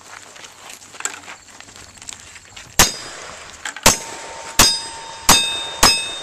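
Five black-powder revolver shots, starting about three seconds in and coming less than a second apart, each followed by the ringing clang of a hit steel plate target.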